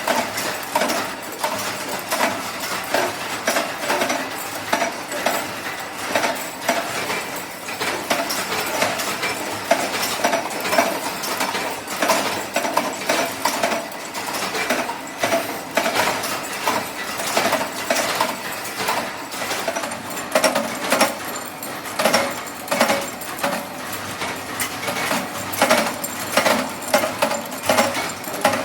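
Rapid, irregular metallic clicking and clinking, several sharp knocks a second, from small metal parts being worked and handled in a horn factory workshop.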